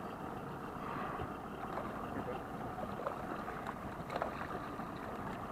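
Steady noise of water and wind on the microphone, with a few small splashes from a hooked bluefish thrashing at the surface beside the boat.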